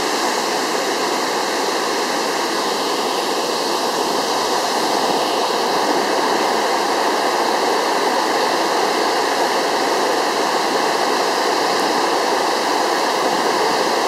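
Minoh Falls, swollen by typhoon rain, pouring down in a loud, steady rush of falling water.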